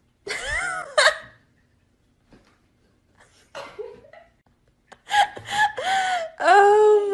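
A woman laughing in short, high-pitched bursts. There are two brief ones near the start and a near-continuous run from about 5 seconds in.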